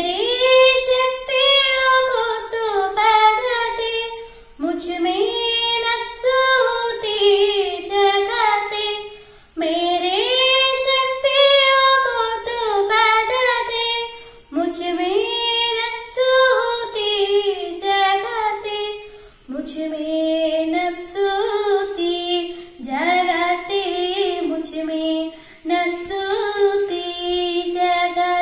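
A girl singing a prayer song solo and unaccompanied, in melodic phrases of a few seconds with short pauses for breath between them.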